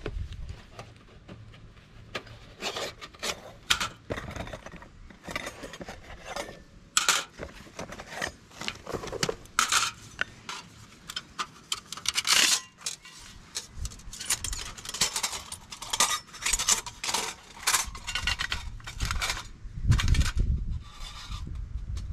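Thin steel panels of a flat-pack folding twig stove clinking and scraping against each other as they are unfolded and fitted together, in quick irregular clicks. There is a heavier low bump near the end.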